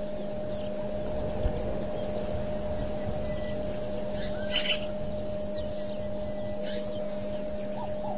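Wild birds giving scattered short, high chirping calls over a steady electrical hum and background hiss from the camera's microphone. The loudest call comes about four and a half seconds in, and there is a single low thump about a second and a half in.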